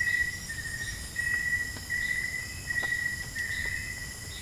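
Night insects, crickets among them, trilling steadily in a high pitch, the trill rising and falling in segments of about a second, with a couple of faint clicks.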